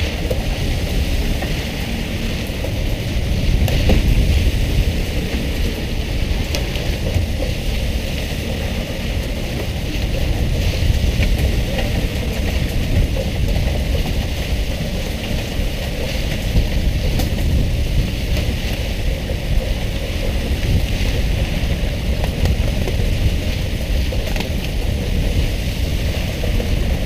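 Steady rushing noise aboard a pole-and-line tuna boat: water spray hissing and pattering on the sea surface like rain, over wind buffeting the microphone and a low rumble from the boat.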